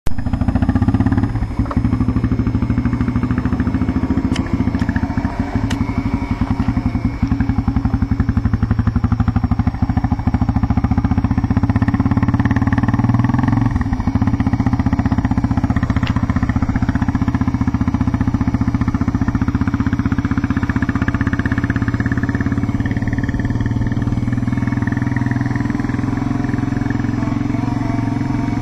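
Onboard riding noise from an electric pit bike: wind buffeting the bike-mounted microphone, with a Suzuki LTZ 400 quad's engine running alongside.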